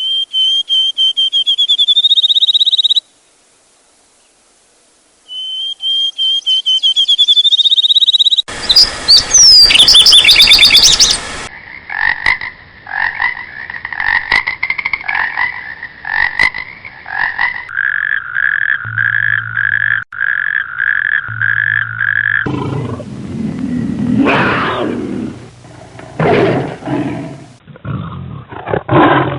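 A run of different animal calls cut one after another: a high, rising chirping trill twice with a silent gap between, rapid repeated pulsed calls in the middle, then deep roaring calls near the end.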